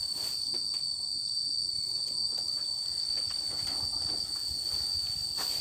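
Insects droning steadily in a continuous high whine, with faint rustles and light knocks of cut grass being loaded onto a trailer.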